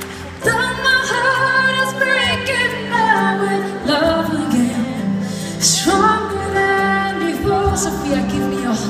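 A woman singing live into a microphone, with long held notes, accompanied by acoustic guitar and double bass, heard from the audience seats of a concert hall.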